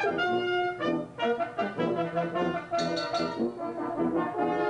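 Brass band playing, the full ensemble sounding a series of changing chords.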